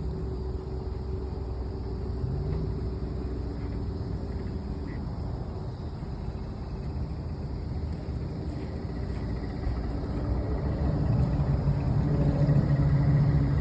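Pickup truck engine running at low speed, a steady low hum that grows louder about eleven seconds in as the truck moves up.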